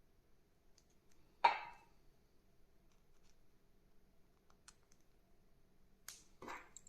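Watch case back being fitted onto a Casio G-Shock GA400: one sharp click about one and a half seconds in, then two shorter knocks close together near the end, with faint small ticks between.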